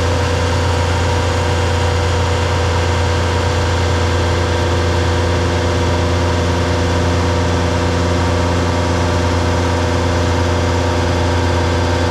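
DAF combination gully tanker running its engine and pump unit: a loud, steady low drone that holds constant throughout.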